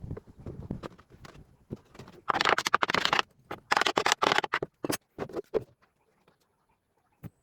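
Irregular knocks and clatter, with two loud rasping bursts of about a second each in the middle, then a single click near the end.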